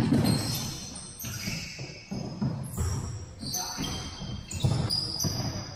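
Futsal play on a hardwood gym floor: sneakers squeaking in short high squeals as players run and turn, with thuds of the ball being kicked and bounced.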